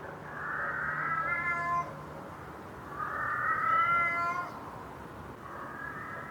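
A cat meowing: two long drawn-out meows, the second the louder, and a fainter third one starting near the end.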